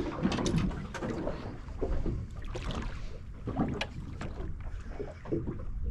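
Small boat rocking at sea: water slapping against the hull with wind on the microphone, and scattered knocks and clatters of gear as someone moves about on deck.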